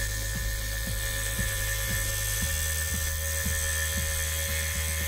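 Scroll saw running, its fine blade cutting fretwork in thin plywood: a steady motor hum and whine.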